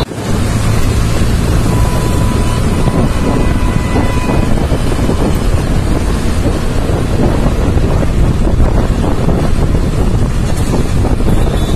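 Wind buffeting the microphone over a motorcycle running steadily at road speed.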